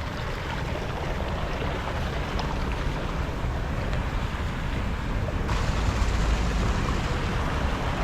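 Wind buffeting the microphone: a steady low rumble under an even rushing hiss.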